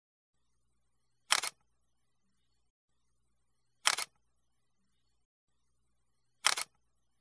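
Three camera shutter clicks, evenly spaced about two and a half seconds apart, with dead silence between them.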